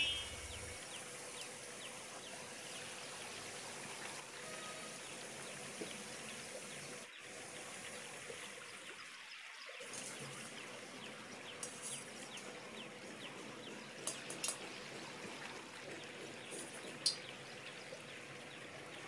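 Puris deep-frying in hot oil in a kadhai: a faint, steady sizzle with a few small crackles.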